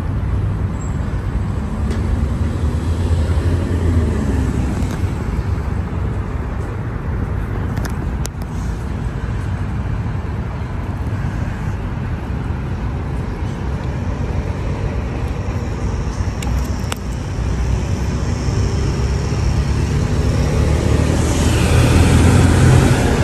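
Steady low rumble, growing louder near the end.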